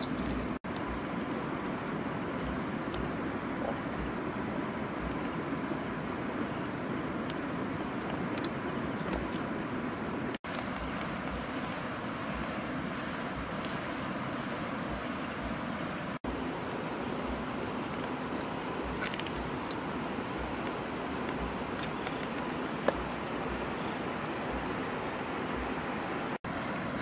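Steady outdoor background: an even hiss with a continuous high-pitched insect drone, cut off briefly three or four times.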